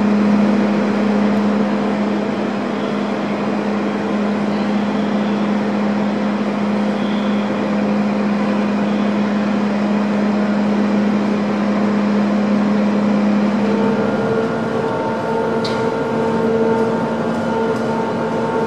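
Steady drone of a car ferry's machinery, with a strong low hum. In the last few seconds a pulsing tone of several notes sounds over it, on and off.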